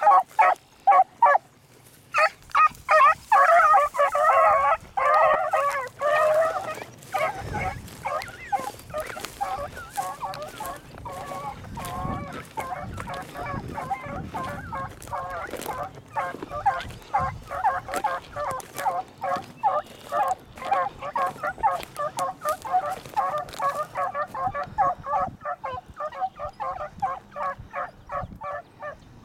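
A pack of beagles baying in rapid, overlapping short calls as they run a rabbit's scent track. The calls are loud for the first several seconds, then fainter but continuous.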